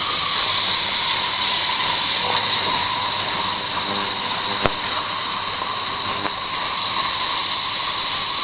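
Surgical suction aspirator running at the wound: a loud, steady hiss of drawn air with a faint whistling note.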